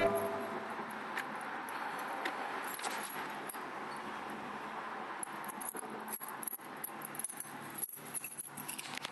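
A ring of keys jangling and clicking in a hand, the clinks coming thick and irregular in the second half, over a steady hiss of background noise.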